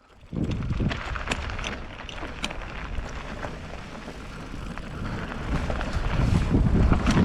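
Mountain bike rolling down a trail, filmed on a helmet camera: wind rumbling on the microphone with tyre noise and scattered rattling clicks from the bike. The rush grows louder near the end.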